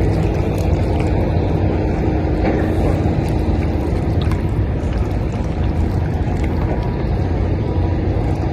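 Steady low outdoor rumble with a faint hiss above it, unbroken and without distinct events.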